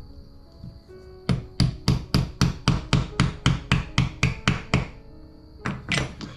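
A small hammer tapping repeatedly on a part, about four sharp taps a second for some three and a half seconds, then two more taps near the end.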